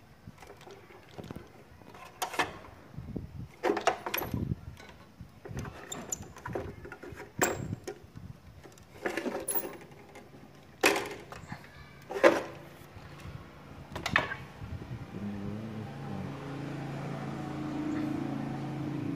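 Clicks, knocks and rattles of a CRT television's main circuit board and its wire connectors being handled and pulled loose from the chassis, a dozen or so sharp knocks spread over the first part. About three quarters of the way through, a steady low hum starts and continues.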